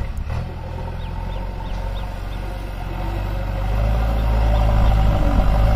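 Diesel engine of a JCB backhoe loader running under load as the loader works the soil heap, growing louder a little past halfway. A few short high chirps sound over it in the first half.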